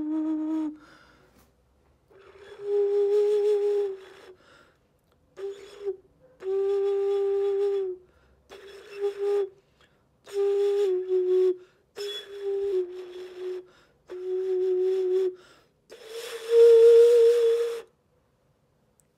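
Hand-made clay xun (Chinese vessel flute) played in short phrases of breathy, pure low notes with pauses between them. The last phrase, near the end, is the loudest and a little higher, then stops.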